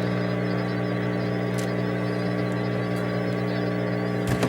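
Steady low hum made of several even tones, with a couple of faint clicks.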